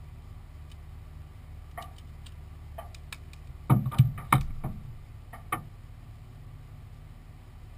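Knocks and thumps from a helmet and gloved hands being set down and handled on a parked dragster's cockpit close to the camera, loudest in a quick cluster about four seconds in. Scattered light clicks and a steady low hum run underneath.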